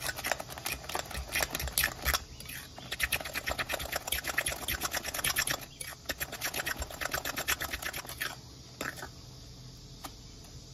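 A fork beating raw eggs with minced pork and glass noodles in a glass bowl: rapid, rhythmic clicking and scraping of the fork against the glass. It eases off about eight seconds in, leaving a few single taps.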